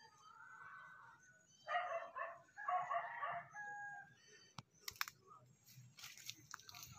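A rooster crowing once, faintly, a call of under two seconds starting about two seconds in, followed by a few faint clicks.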